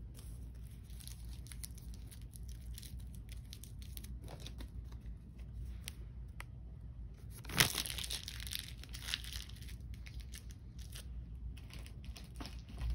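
Plastic blind-bag wrapper crinkled and torn open by hand, in a run of crackles, with the loudest rip a little past halfway.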